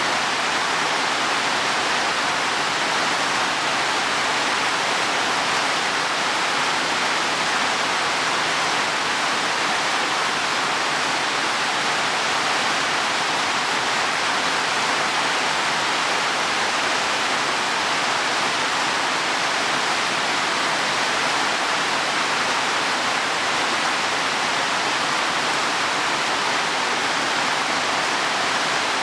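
Heavy rain falling steadily on leaves and soil: a dense, even hiss with no breaks.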